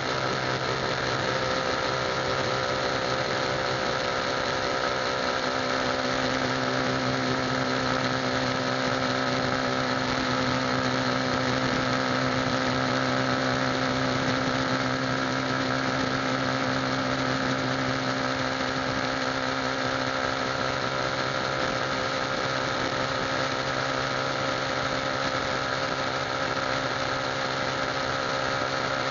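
Motorcycle engine running steadily at cruising speed, a constant whining drone with hardly any change in pitch.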